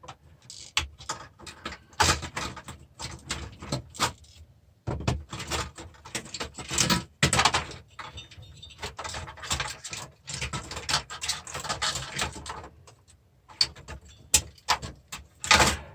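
Irregular clicks, knocks, scrapes and rattles of metal parts and tools being handled as the steel-cased insides of an old DVD player are taken apart.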